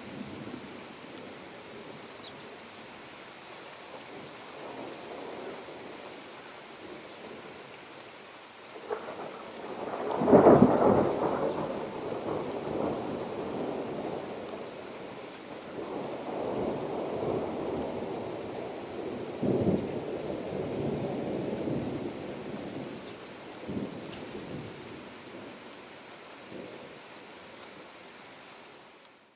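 Thunder over steady rain: a sudden clap about nine seconds in swells to the loudest point, then rumbles on in several waves and dies away near the end.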